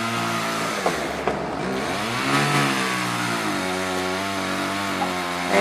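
Chainsaw engine running under load during tree felling, its pitch rising and falling in several swells as it revs.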